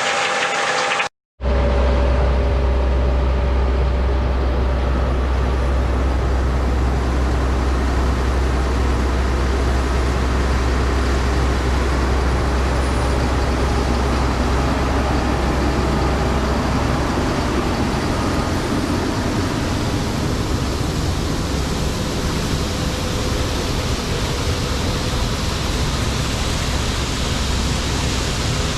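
Steady engine noise with a heavy low rumble. It is broken by a short gap about a second in, and the rumble eases somewhat about two-thirds of the way through.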